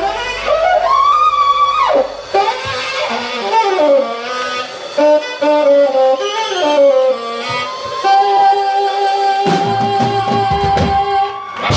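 Saxophone playing an unaccompanied solo line that winds and bends in pitch, then holds one long high note from about eight seconds in. Low band sounds start to come back in near the end.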